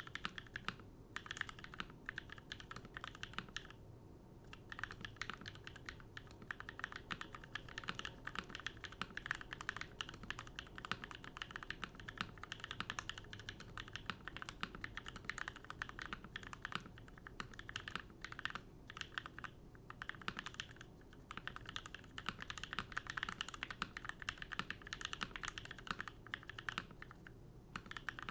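Typing on a Keycult No. 1 TKL mechanical keyboard fitted with NovelKeys Cream linear switches: a fast, steady run of keystrokes broken by a few brief pauses.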